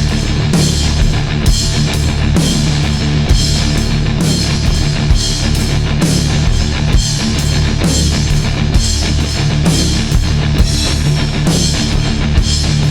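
Loud rock music with a drum kit and electric guitar, played on a steady beat of about two drum hits a second.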